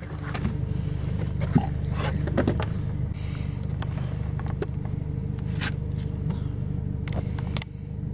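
Boat's outboard motor idling steadily, with scattered knocks and clatter from a catfish and gear being handled in the boat.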